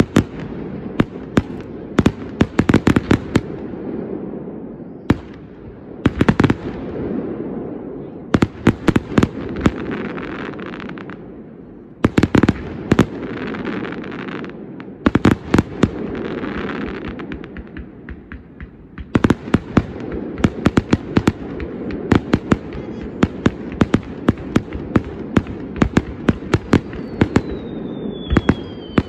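Fireworks display: clusters of rapid sharp bangs and crackling from bursting shells, with short lulls between them, over a steady low rumble. Near the end a whistling tone falls in pitch.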